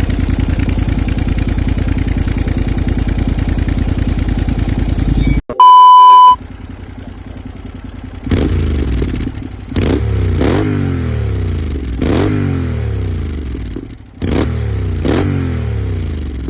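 Honda NC-series parallel-twin motorcycle engine running through an aftermarket end can, held at steady raised revs, then cut by a loud one-tone beep of under a second. The engine then idles and is blipped six times, each rev falling back to idle.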